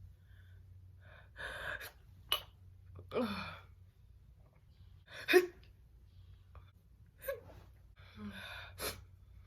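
A woman's stifled, held-back sneezes: a run of gasping 'oh' in-breaths as each sneeze builds, broken by short sharp suppressed sneeze bursts, the loudest about five seconds in.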